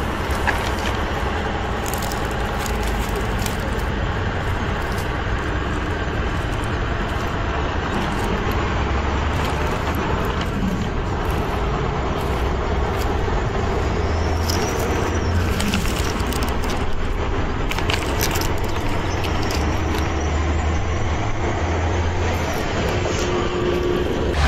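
Plastic toy dump trucks pushed over dry dirt and rubble, their wheels crunching on grit, twigs and debris, with scattered sharp cracks and clicks over a steady low rumble.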